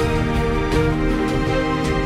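Background music: soft, tender instrumental with sustained notes and light percussion.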